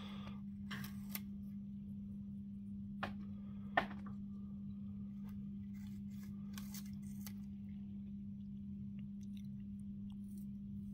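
African grey parrot biting and crunching into a whole apple with its beak: a few sharp crunches about a second in, at three and four seconds (the loudest), and a short run of them around seven seconds. A steady low hum lies under it.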